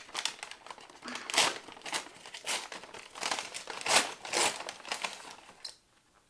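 Kraft-paper gift bag crinkling and rustling in irregular bursts as it is opened and rummaged through by hand; the rustling dies away about six seconds in.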